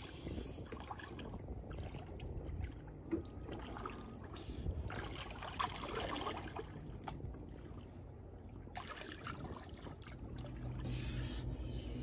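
Water splashing and lapping as a seal swims at the surface close beside a sailboat's stern, with scattered small splashes.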